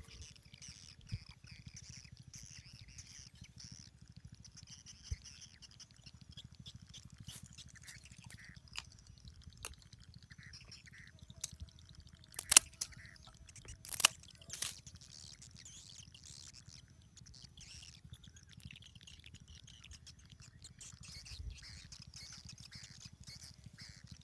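Small birds chirping and twittering throughout. Partway through come a few sharp snaps, the loudest sounds, as scissors cut through crab and mantis shrimp bait.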